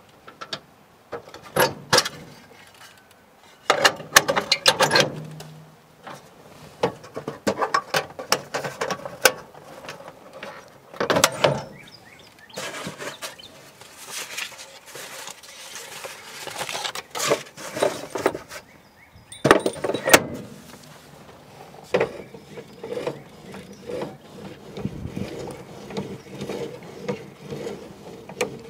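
Hand-tool work on metal car parts: irregular clinks, knocks and rattles of tools and metal pieces, with a short squeak about twenty seconds in.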